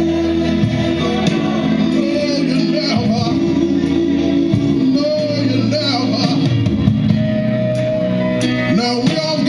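A man singing soul into a microphone over backing music with a steady bass line, holding and bending long notes.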